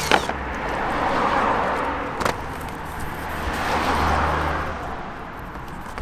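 Cars passing by, one about a second in and another about four seconds in, each swelling and fading away, with a sharp click at the start and another about two seconds in.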